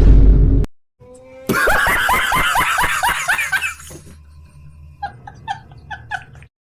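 A meme laughing sound effect: after a loud, short blast right at the start, a burst of rapid laughter, about five "ha"s a second, runs for about two seconds. Softer, quicker laughing pulses follow near the end.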